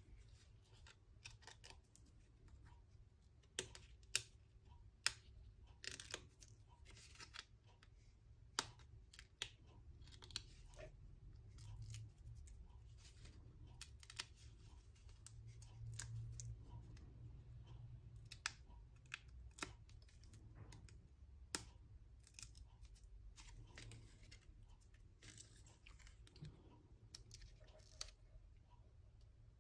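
Faint handling of paper craft materials: hands peeling the backing off 3D foam adhesive dots and handling cardstock, with scattered small clicks and light paper rustling.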